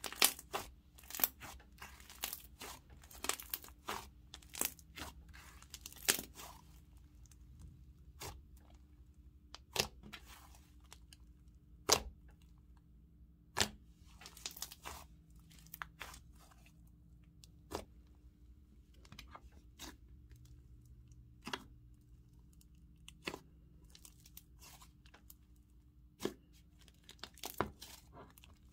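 Thick cloud cream slime with clay mixed in, squeezed and pressed by hand, giving sharp crackling pops: several a second at first, then one every second or two, then a short cluster near the end.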